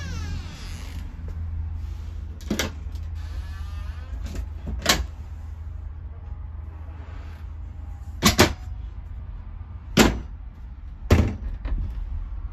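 Wooden cabinet and louvered closet doors in a motorhome being opened and shut, giving about six sharp latch clicks and knocks, two of them close together past the middle, over a steady low hum.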